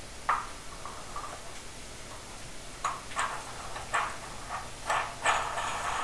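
Brass dielectric union and copper pipe clinking and scraping against each other as they are fitted together by hand: a single sharp clink about a third of a second in, then a run of clinks and rattles from about three seconds on.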